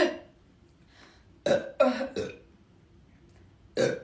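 A girl burping in short, sharp bursts: one at the start, three in quick succession about a second and a half in, and another near the end.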